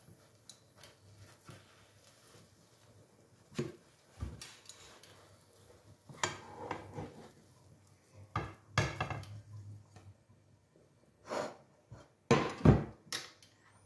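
A slotted spatula scraping and knocking in a frying pan and against a plate as a cooked omelette is lifted out and slid onto the plate. The scrapes and clunks come scattered through, and the loudest few fall near the end.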